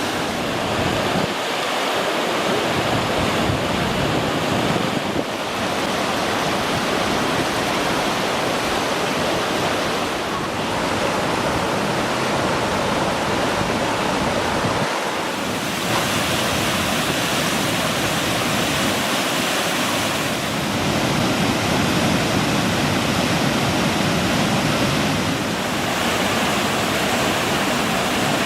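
Waterfall rushing steadily over rock, a dense even roar of water whose tone shifts a little every few seconds.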